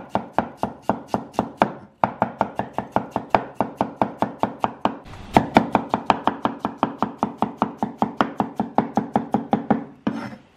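Cleaver chopping onion on a wooden chopping board: rapid, even knocks about six a second, with a brief pause about two seconds in, stopping just before the end.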